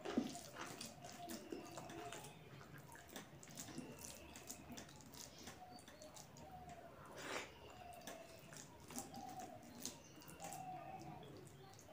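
Soft, wet squishing and smacking as fingers work sticky starchy rice and mashed vegetables on a metal plate, along with the mouth sounds of eating, in many short irregular clicks.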